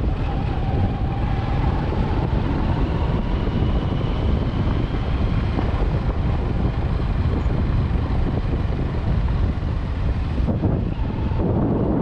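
Vehicle travelling along a rough unpaved road: a steady rumble of road and wind noise on the microphone, with faint steady tones in it.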